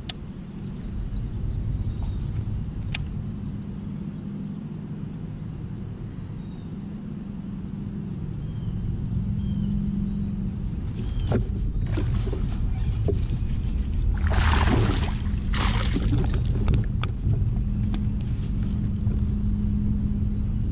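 Steady low wind rumble on the microphone, with faint birds chirping. About two thirds of the way in, a few seconds of loud splashing as a hooked bass thrashes at the surface beside the kayak before being lifted out.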